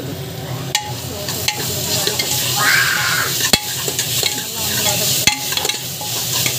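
Sliced onions frying in hot oil with a steady sizzle, stirred with a steel ladle that scrapes the pan and knocks against it several times, once sharply about halfway through.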